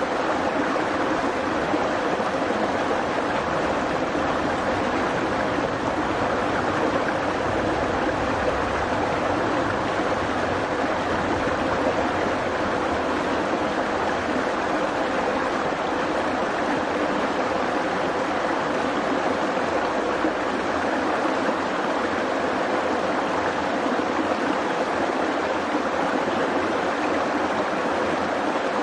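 Shallow rocky creek flowing over stones and through small riffles, a steady sound of running water.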